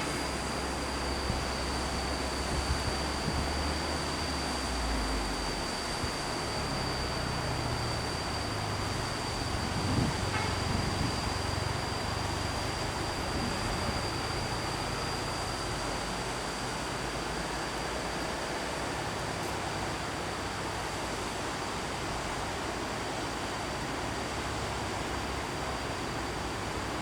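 A vehicle engine running on the road. Its low hum shifts up in pitch and grows briefly louder around ten seconds in, then fades. Under it is a steady outdoor hiss and a thin high steady whine.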